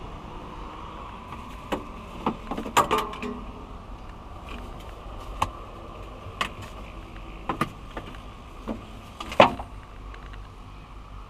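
Hydraulic excavator's engine running steadily in the cab, with about ten scattered knocks and clicks close by, the loudest near the end, as the camera is handled and bumped against the cab.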